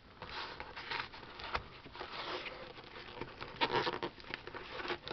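A small knife blade scraping and cutting at plastic wrapping and cardboard on a game box, forcing it open: irregular scratching and tearing with a sharp click about one and a half seconds in, louder scraping a little past the middle.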